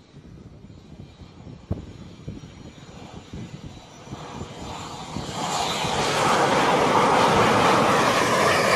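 Turbofan of a Northrop Grumman X-47B unmanned flying-wing jet coming in to land on an aircraft carrier deck: a rushing jet noise that swells from about four seconds in and becomes loud.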